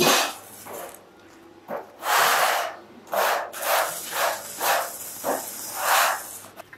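Foam concrete blocks being handled: a run of about ten short, gritty scrapes and shuffles as blocks are pulled from their moulds and carried over a dusty concrete floor, one longer scrape about two seconds in.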